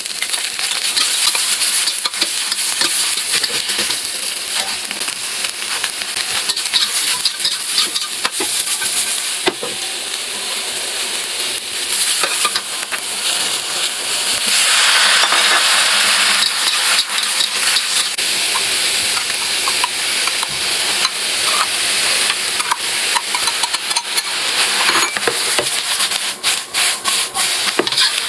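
Food sizzling in a hot pan, stir-fried with a spatula that scrapes and clicks against the pan. The sizzle swells louder about halfway through for a couple of seconds.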